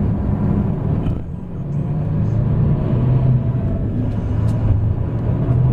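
Scania K440 coach's straight-six diesel engine running under way, a steady low drone. About a second in it dips briefly in loudness, then carries on steadily.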